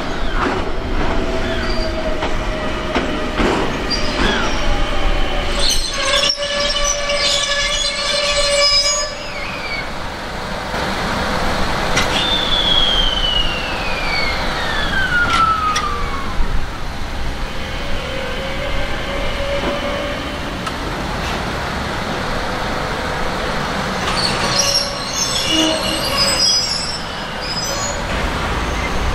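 Ichibata Electric Railway 1000 series electric train (set 1003F) moving slowly off, its wheels squealing with high ringing tones in two spells, about six and twenty-five seconds in. In between comes a whine that falls in pitch over about four seconds.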